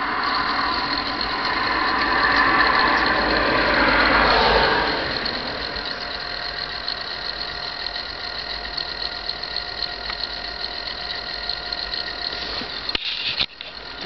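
Steady mechanical running noise with faint high whining tones. It swells louder over the first few seconds, then falls away about five seconds in and settles to an even hum.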